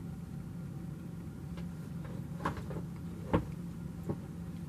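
Sounds of a person eating a piece of chocolate cake: a few short clicks and knocks, the loudest a little past three seconds in, over a steady low hum.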